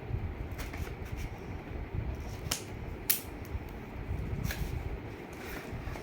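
A graphic tablet's packaging being handled and opened: scattered sharp clicks and rustles of cardboard and plastic over a low rumble of hands on the box.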